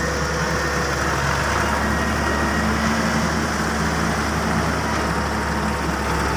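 Heavy diesel engine of construction machinery running steadily at a low, even speed.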